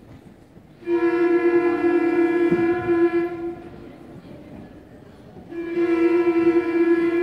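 Beginner school concert band holding one long note together, about three seconds, then after a short rest the same note again.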